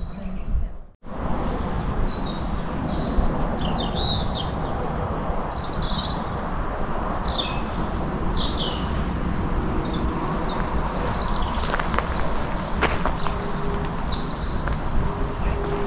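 Small birds chirping and twittering repeatedly over a steady outdoor background noise. The sound cuts out briefly about a second in.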